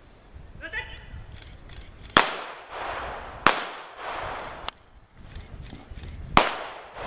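Three blank pistol shots fired by the decoy during a Ring attack exercise: loud sharp cracks about two seconds in, a second and a half later, and again near the end, each echoing for about a second.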